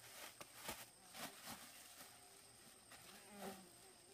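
Very quiet insect buzzing over a steady high insect whine. A short buzz passes about three and a half seconds in, and there are a few soft clicks.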